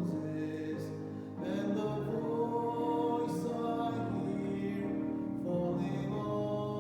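Hymn-style worship music: singing over sustained instrumental accompaniment, moving from note to note in a slow melody.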